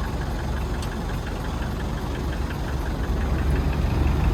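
Pickup truck's engine running as it drives, heard from inside the cab: a steady low drone with a light, quick, regular ticking over it.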